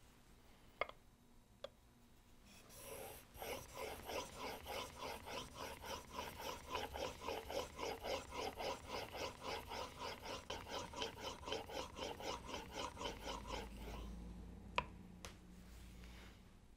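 Skew plane blade clamped in a honing guide being pushed back and forth on a waterstone, an even rasping stroke about three times a second for some eleven seconds, honing the bevel. Two light clicks come before the strokes start, and a sharp click near the end.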